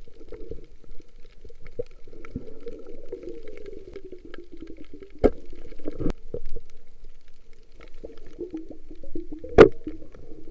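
Muffled underwater sound of water bubbling and gurgling, with scattered crackles and a few sharp clicks, the loudest about nine and a half seconds in.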